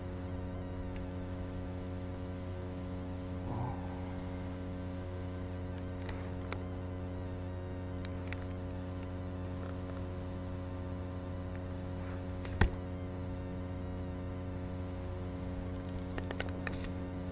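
A steady hum at one unchanging pitch with overtones, broken by a single sharp click about twelve seconds in and a few crackles near the end.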